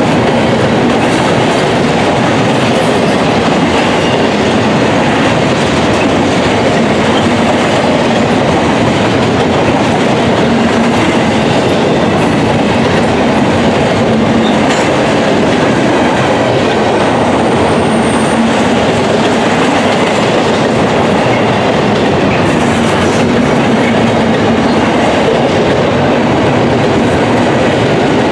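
Double-stack intermodal freight cars rolling past at close range: steel wheels running over the rail joints in a loud, steady stream of track noise.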